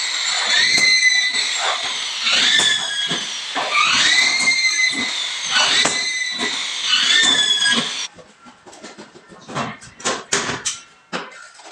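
Corded electric drill driving screws through fibre-cement board into a metal stud: a whine that rises in pitch and levels off, over a gritty high rasp, repeated about every one and a half seconds. It stops abruptly about eight seconds in, leaving a few sharp clicks and knocks.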